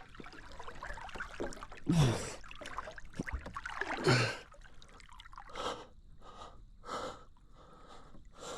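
An angler breathing hard while fighting a large king salmon, in sharp exhalations every second or two, two of them with a short low grunt, over faint trickling river water.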